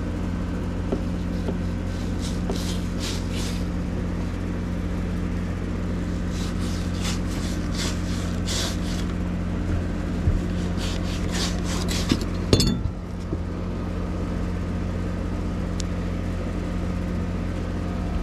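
Fillet knife scraping along the skin of a sauger fillet in runs of quick strokes as the skin is cut away, over a steady low hum. A sharp knock about twelve seconds in.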